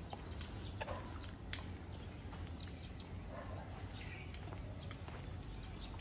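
Footsteps on a concrete path, heard as irregular soft clicks, over a steady low background hum.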